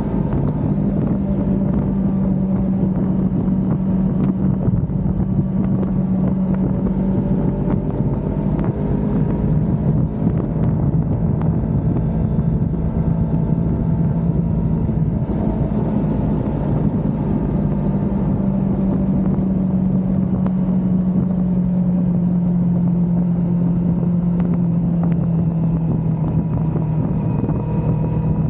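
Kawasaki Ninja 400's parallel-twin engine running at a steady cruising speed under the rider, over a constant rushing noise. The engine note holds steady and eases slightly lower in the last few seconds.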